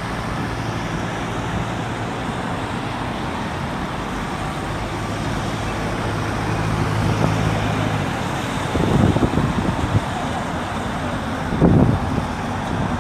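Steady city road traffic, with one vehicle's engine humming steadily nearby until about eight seconds in. Two low gusts of wind buffet the microphone near the end.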